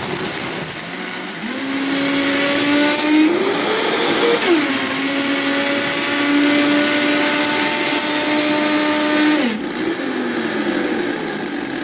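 Vitamix blender running at high speed, blending ice and lemonade into a slushy. The motor's pitch rises about three seconds in, drops back a second later, holds steady, and winds down about nine and a half seconds in.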